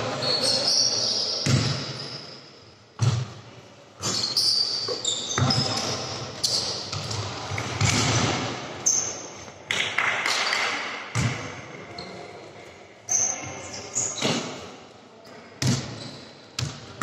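Basketball bouncing and thudding on the court during play in an echoing gym, with sharp, irregular impacts about once a second and short high squeaks between them.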